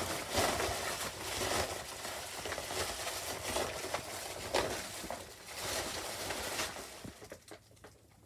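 Rustling and rubbing handling noise with scattered small knocks as the recording phone is moved about and set in place, fading out about seven seconds in.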